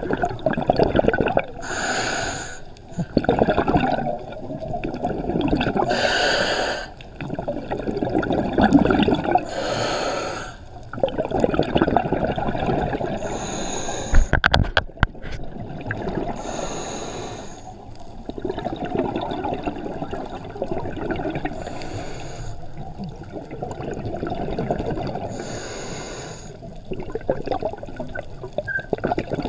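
Scuba diver breathing through a regulator underwater: a short hissing inhale about every four seconds, each followed by a long rush of gurgling exhaust bubbles. A quick run of sharp clicks comes about halfway through.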